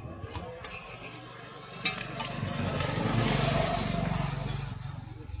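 A motor vehicle passing by: a rumbling engine noise that swells up after about two and a half seconds, peaks, and fades away near the end. A few sharp clinks come just before it.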